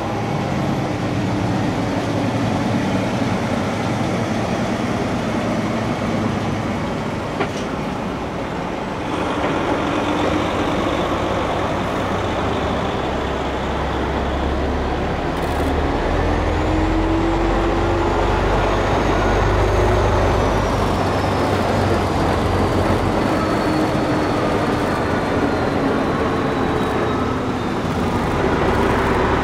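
Diesel engine of a heavy tractor-trailer running at low speed as it hauls an E5 series Shinkansen car past, with a low rumble that grows stronger about nine seconds in and an engine note that slowly rises and falls.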